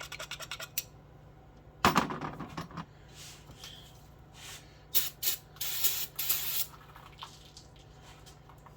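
Aerosol carburetor cleaner sprayed into a carburetor in a few short hisses, then one longer hiss of about a second. Before it there is fast scratchy clicking and a single sharp knock with a brief ring, about two seconds in.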